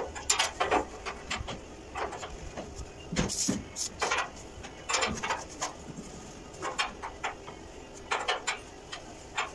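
Irregular knocks and clanks, one or two a second, from people moving about on a steel spiral staircase.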